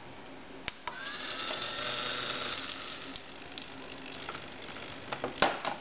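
Small electric gear motor whirring for about two seconds, rising in pitch as it starts, with a click just before it and a few sharp clicks near the end.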